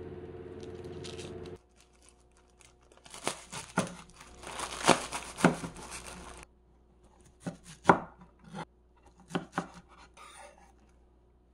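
A chef's knife cuts through a plastic-wrapped bunch of enoki mushrooms on a wooden cutting board, the wrapper crinkling under a run of strokes. Then come several separate sharp chops on the board as the enoki are sliced. Background music plays for the first second or so.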